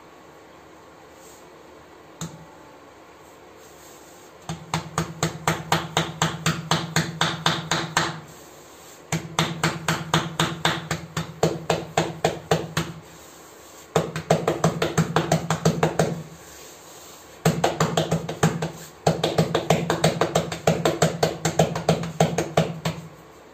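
Rotti dough being patted flat by hand on a floured counter: rapid rhythmic slaps, about five or six a second, starting about four seconds in and coming in runs of a few seconds with short pauses between.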